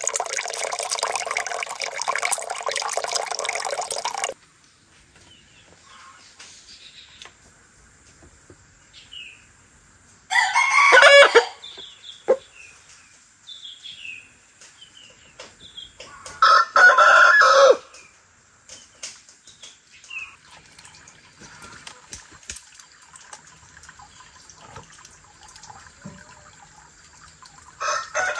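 Tap water running for the first four seconds or so, as clams are rinsed in a plastic basket. Then a rooster crowing twice, about ten and sixteen seconds in, with faint small bird chirps between.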